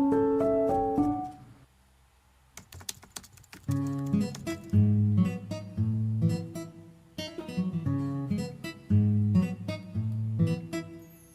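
Background music of plucked guitar-like notes that stops briefly about a second and a half in, with a run of sharp clicks in the gap, then starts again as acoustic guitar music with a steady rhythm.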